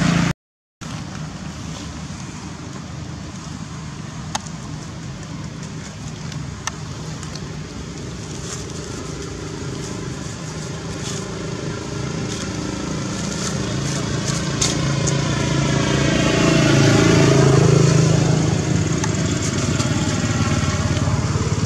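Steady hum of road traffic. One motor vehicle's engine grows louder to a peak about three-quarters of the way through, then eases off. The sound drops out completely for half a second right at the start.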